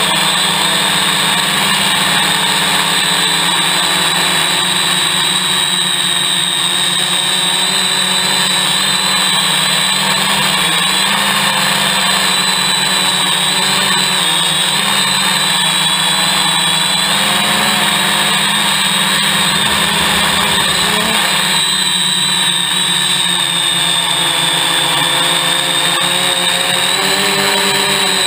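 A hexacopter's six electric motors and propellers running in flight, heard from a camera mounted on the frame: a loud, steady buzz with a high whine. Its pitch wavers a little as the throttle changes, most noticeably around twenty seconds in.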